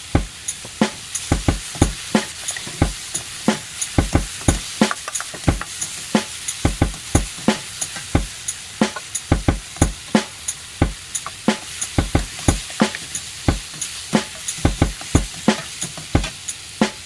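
Egg fried rice sizzling in a wok over a high-power gas burner while a utensil stirs and tosses it, clacking against the wok several times a second in irregular bursts.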